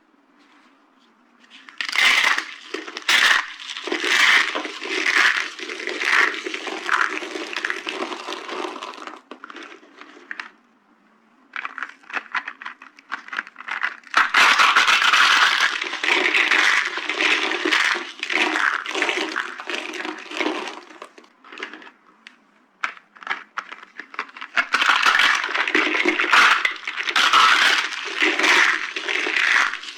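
Dry soap being crushed and broken, crunching and cracking in dense bursts. The crunching starts about two seconds in and comes in three stretches, with short pauses about a third and two thirds of the way through.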